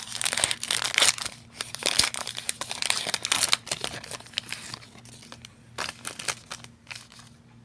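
Foil wrapper of a 2018 Panini Unparalleled football card pack being torn open and crinkled. Dense crackling for the first three to four seconds, then fainter, sparser crinkles.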